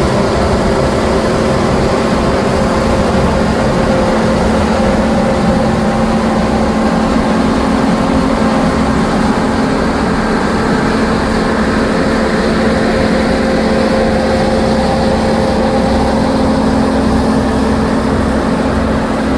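New Holland combine harvester with a MacDon FD240 draper header running steadily while harvesting soybeans: a constant machine drone with a couple of steady hum tones, holding an even level throughout.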